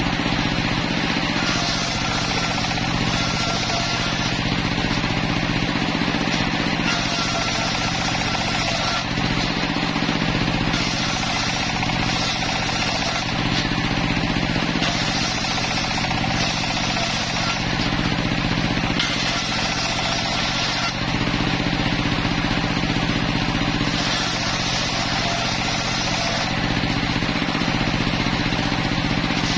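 Homemade table circular saw ripping wooden boards: a steady low drive hum, with a higher hiss swelling for about two seconds roughly every four seconds as each board runs through the blade.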